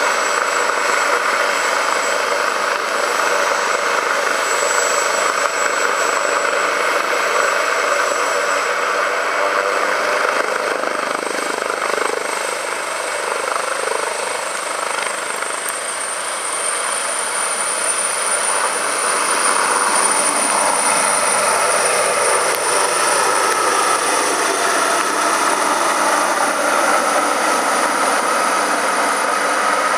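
Air ambulance helicopter running, its rotor and turbine engine making a steady loud noise. About halfway through, a high turbine whine rises in pitch and holds as the helicopter powers up and lifts off.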